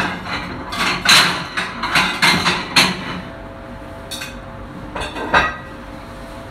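Clatter of crockery and kitchenware: a quick run of clinks and knocks in the first three seconds, then a few more about four to five seconds in, as a plate is taken out for plating.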